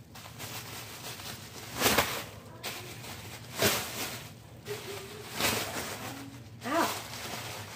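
A bag of cat litter swung around, making four whooshing swishes about a second and a half apart. A short rising pitched sound comes near the end.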